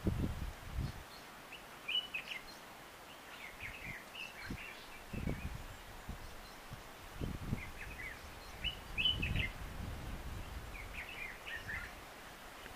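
Wild birds chirping in short clusters of high calls, several times with pauses between, over a few low thuds.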